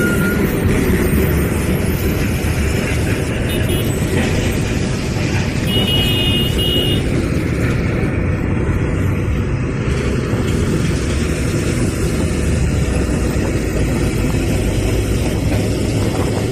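Highway traffic of heavy trucks, motorcycles and cars passing close by: a loud, steady rumble of engines and tyres, with a brief high tone about six seconds in.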